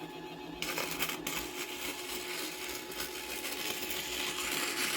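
Mini lathe motor running slowly with a faint steady whine, and 60-grit sandpaper rasping against the spinning steel coil spring of a suspension fork, starting about half a second in and growing louder toward the end.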